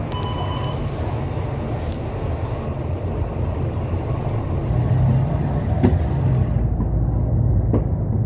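Bus engine and road rumble heard from inside a moving bus. The rumble is steady and low, and it grows louder about five seconds in. There is a brief beep near the start and a couple of light rattles.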